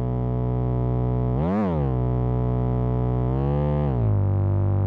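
Background music: sustained, heavily processed notes that swoop up in pitch and back down about a second and a half in, and again briefly near the end.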